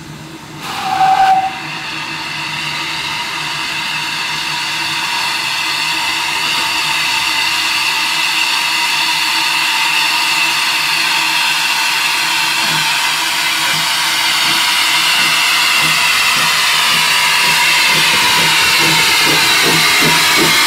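Steam locomotive whistle gives one short toot about a second in. Then comes a steady hiss of escaping steam from GWR Avonside 0-4-0 saddle tank No. 1340 'Trojan', growing gradually louder.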